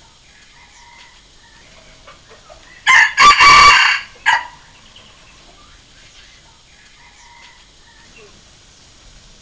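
Red junglefowl rooster crowing once, about three seconds in: a short opening note, a long loud middle and a brief final note, the whole crow lasting about a second and a half. It is a junglefowl crow played as a decoy call to lure wild junglefowl.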